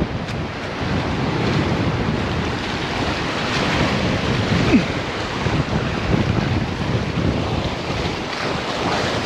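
Waves washing and breaking in the surf, with wind buffeting the microphone.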